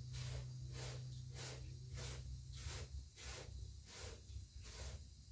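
Dry uncooked rice rustling and sliding over a metal tray as hands sweep through it to pick it clean, in a steady run of soft swishes about three a second. A low hum underneath fades out about three seconds in.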